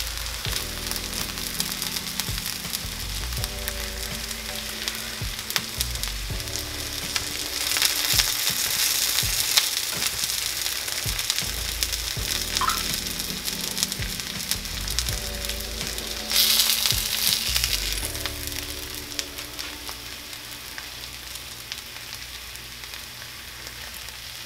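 Chicken breasts sizzling in hot oil in a cast iron skillet, with the scrape and clink of a spatula and fork in the pan. The sizzle swells louder twice, about eight and sixteen seconds in.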